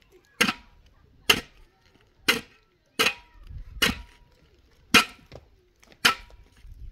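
A hand tool striking hard, firmly stuck material seven times, about one blow a second. Each blow is a sharp crack, some with a brief metallic ring. Water-damaged old material is being broken out so it can be redone.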